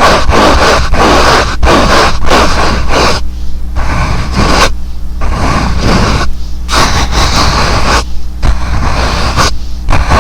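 Fast ASMR hand and mouth sounds close to the microphone: quick rubbing and scratching strokes in rapid bursts with short breaks between them, over a steady low hum.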